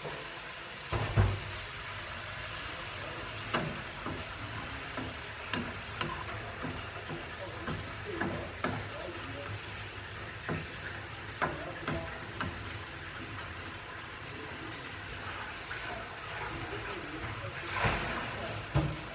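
Spinach sizzling in oil in a pan over a gas burner: a steady sizzle with occasional sharp clinks and knocks of a metal utensil against the pan as it is stirred.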